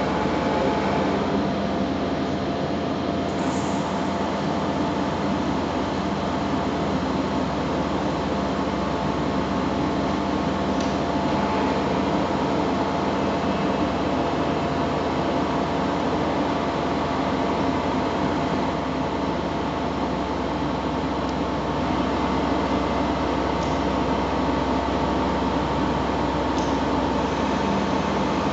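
Mecof CS8 bed milling machine running under pendant control: a steady mechanical running noise with several steady hum tones, a little louder over the last few seconds.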